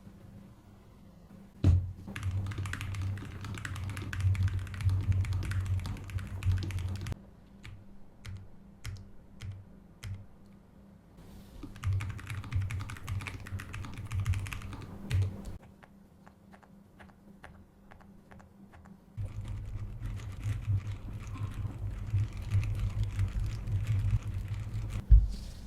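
Typing on a Lofree Flow low-profile mechanical keyboard: three runs of rapid keystrokes with a low thump under each click, separated by a few scattered single key presses and a pause of several seconds. A sharp knock comes near the start and a heavier thump near the end.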